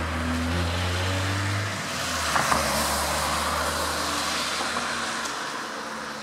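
A motor vehicle passing, its low engine hum dropping away about two seconds in, over steady traffic noise that slowly fades.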